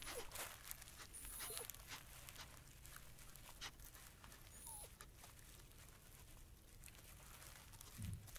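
Faint beaver whines: a few short, high, falling squeaks with scattered clicks and rustling, and one soft low thump near the end.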